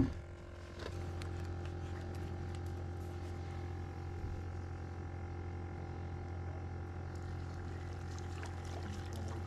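Boat engine running steadily underway, a low even hum with a few steady tones above it that starts about a second in.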